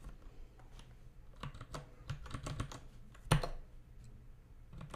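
Typing on a computer keyboard: a quick run of key clicks, with one louder keystroke a little over three seconds in.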